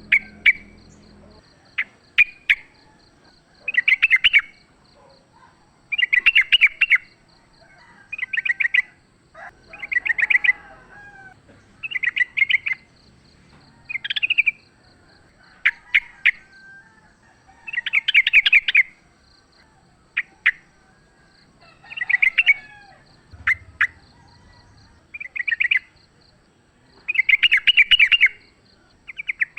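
Yellow-vented bulbul (trucukan) singing short, bubbly, chattering phrases, one about every two seconds.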